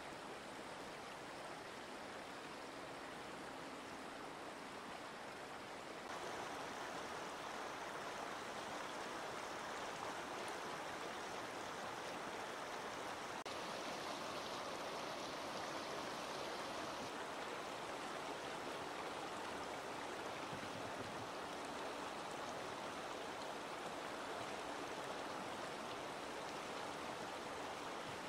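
Shallow, fast-flowing river rushing steadily over stones, a little louder from about six seconds in.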